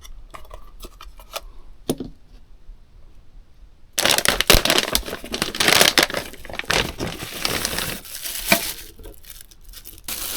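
Plastic packaging crinkling and rustling as it is handled and torn open. A few faint clicks come first, then the crinkling starts suddenly about four seconds in and is loud and dense from there on.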